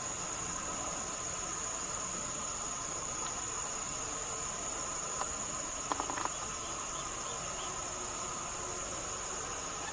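Steady chorus of insects, a continuous high-pitched buzz, with a few quick clicks about six seconds in.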